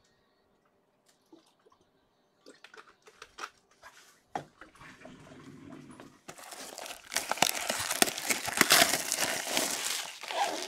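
Plastic shrink wrap crinkling and tearing loudly as a sealed box of trading cards is unwrapped. It starts about six seconds in, after a few faint clicks of handling.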